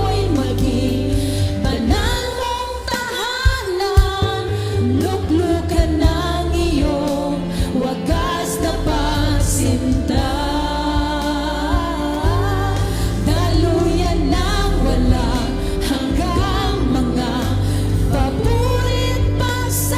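Worship song in Tagalog, voices singing a melody over instrumental backing with a steady bass.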